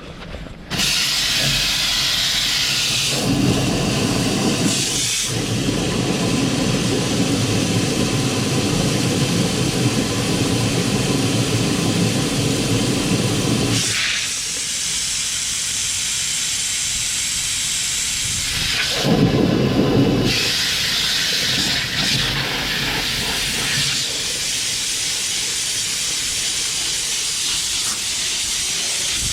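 High-pressure drain jetter spraying water to blast out a blocked drain: a loud steady hiss that starts about a second in and changes tone several times as the spray shifts.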